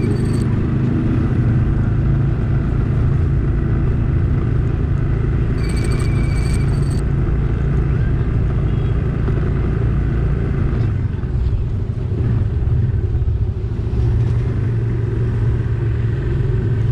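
Motorcycle engine running steadily while riding along a street, with wind and road noise. A brief high-pitched tone sounds for about a second, about six seconds in.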